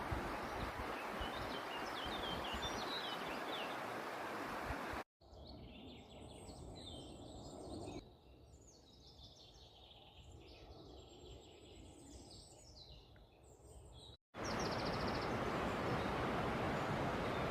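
Songbirds singing and chirping outdoors, many high calls overlapping in a quieter middle stretch. Before and after it, a steady rushing outdoor noise, wind on the microphone or moving water, carries only a few chirps and one short rapid trill. The sound changes abruptly twice where the clips are cut.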